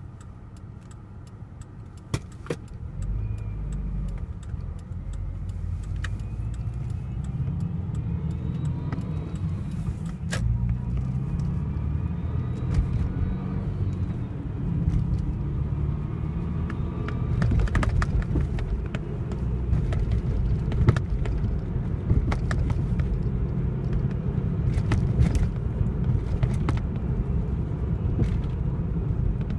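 Naturally aspirated Subaru Forester (SG5) engine running with a whine from its worn belt tensioner pulley, a whirring like a spinning turbo that rises and falls with engine speed. Scattered sharp clicks throughout.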